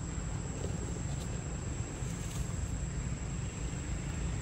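Forest ambience: a steady low rumble with a constant high-pitched insect drone over it.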